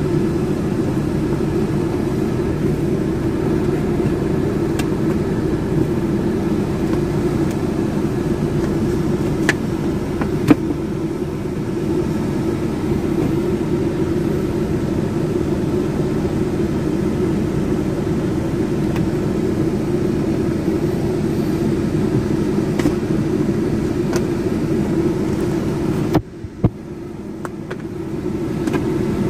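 Steady low hum of the car running at idle, heard inside the cabin, with a few light clicks and taps as the dashcam cord is pressed into the headliner trim. The hum dips briefly near the end.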